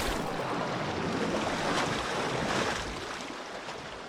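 Sea waves and wind making a steady rushing noise that fades away near the end.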